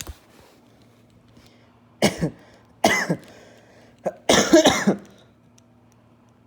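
A person coughing, three coughs about a second apart, the last the longest.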